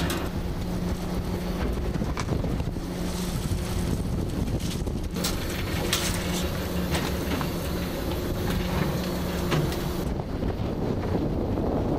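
A work boat's engine running steadily with a low, even hum, with wind on the microphone and a few light knocks.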